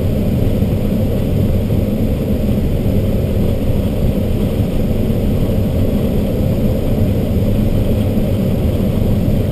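Steady rush of air over an ASK-21 glider's canopy on aerotow, heard inside the cockpit, with a low, even drone from the tow plane's engine ahead.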